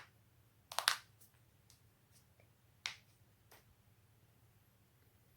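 Joints cracking: a quick cluster of two or three pops about a second in, fainter clicks after it, and one sharp crack about three seconds in.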